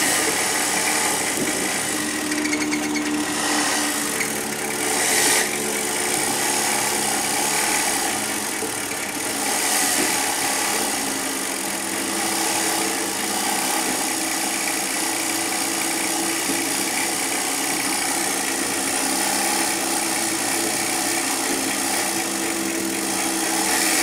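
Motor-driven homemade cream separator spinning at high speed after being sped up, a steady mechanical whir. Its speed rises and falls a little, because the speed controller reads an unsteady sensor signal.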